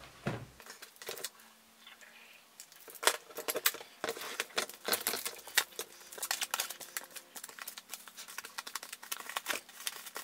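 Clear plastic shrink-wrap crinkling as it is peeled off a vinyl LP sleeve by hand. It starts quietly with a few clicks, and a dense crackle builds from about three seconds in.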